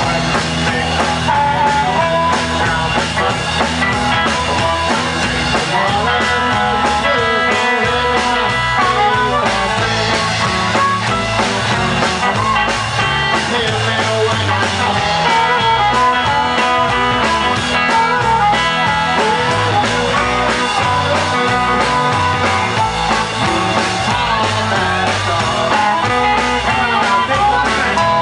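Live electric blues band playing in the 1950s Chicago style: amplified harmonica played through a microphone over electric guitars and a drum kit.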